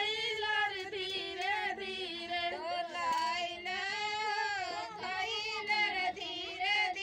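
Several women singing a traditional wedding song together in high, drawn-out, wavering voices, with no instruments.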